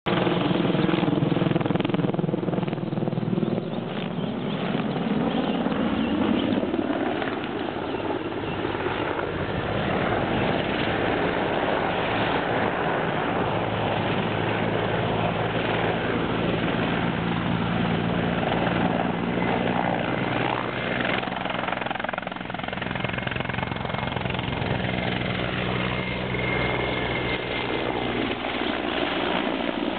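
Mil Mi-24V helicopter in display flight: the beat of its five-blade main rotor and the whine of its twin turboshaft engines, running loudly throughout. The pitch shifts over the first several seconds as it manoeuvres overhead, then holds steadier as it passes low.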